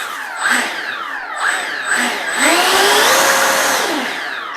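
80mm electric ducted fan of a Freewing F-86 Sabre model jet being throttled up and down, its whine rising and falling in pitch with a few short blips, then a longer, louder run-up about two and a half seconds in that winds back down near the end.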